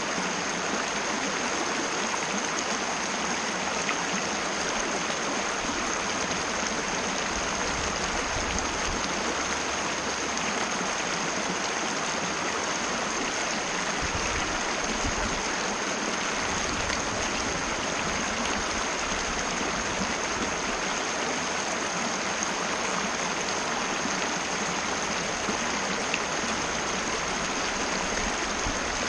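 Mountain river rushing steadily, with a thin high-pitched tone held steady above the sound of the water.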